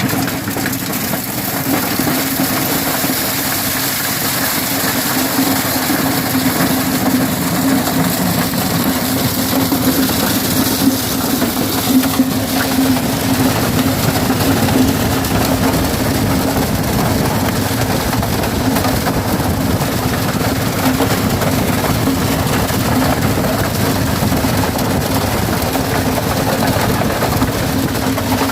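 Engine running steadily at constant speed: an even hum with a rough wash of noise above it that does not rise or fall.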